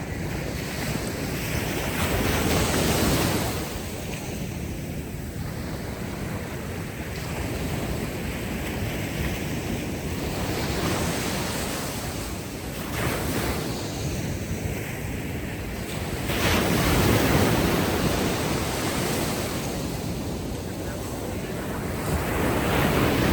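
Ocean waves breaking and washing up on a beach, swelling and fading every few seconds, with steady wind.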